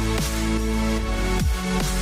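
Background electronic music: held synth chords over deep drum hits that drop in pitch.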